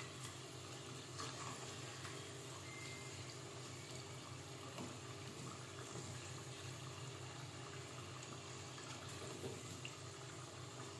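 Hot oil sizzling and bubbling steadily as rice turon (glutinous-rice rolls in spring roll wrappers) deep-fry in a pot, with a few light knocks of a wooden spatula as the rolls are turned.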